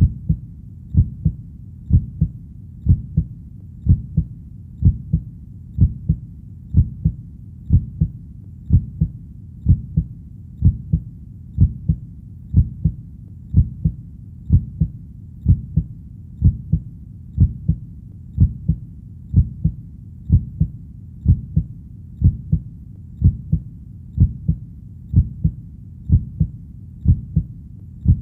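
Heartbeat sound: a steady rhythm of paired low thumps (lub-dub), about one beat a second.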